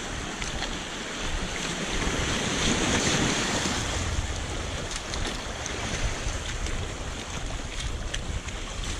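Small sea waves washing and breaking over a low rock ledge at the shoreline, a steady rushing surf that swells louder about two to three seconds in. Wind buffets the microphone, adding a low rumble.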